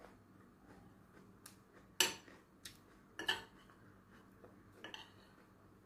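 Metal fork and spoon clinking and scraping against a dinner plate: a few separate short clinks, the sharpest about two seconds in, others near three and five seconds.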